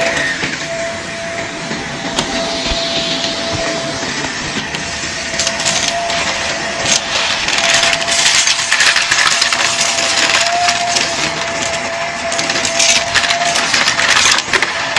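Shark Navigator upright vacuum running with a steady whine, crackling and clicking as crumbs and bits of debris are sucked up off the carpet. The crackling gets thicker about halfway through.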